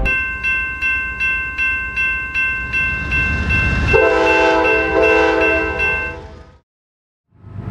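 A railroad crossing bell rings steadily at about three strikes a second. About four seconds in, a train horn joins it for about two seconds, then both fade out into a moment of silence.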